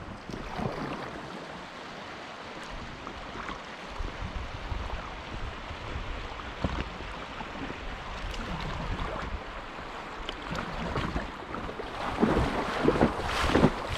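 Fast river water running past an inflatable kayak, with paddle strokes splashing, and wind rumbling on the microphone. The splashes grow louder near the end.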